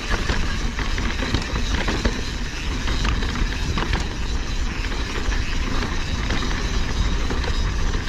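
Mountain bike riding over a rough, rocky jeep trail: a steady low rumble with scattered knocks and rattles as the tyres and bike hit rock.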